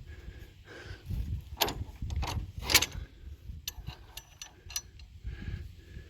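Steel hitch parts clanking as a tractor's three-point lift arms and pins are worked loose, with two sharper metal knocks in the first half and a run of lighter clicks and clinks just after the middle, over a low rumble.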